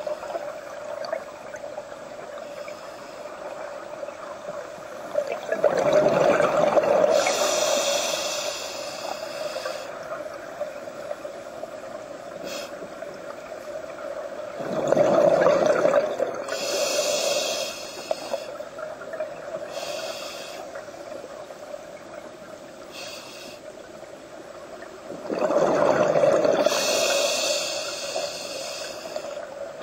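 Scuba diver breathing underwater through a regulator: three breath cycles about ten seconds apart, each a surge of exhaled bubbles and a regulator hiss. A steady faint hum runs underneath.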